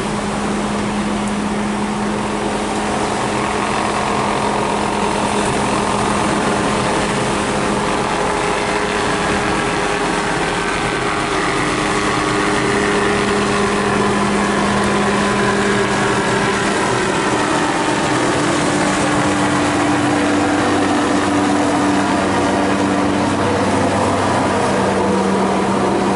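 Small light helicopter flying past overhead: a steady rotor-and-engine drone whose pitch shifts slowly as it moves across the sky, over the hiss of rain.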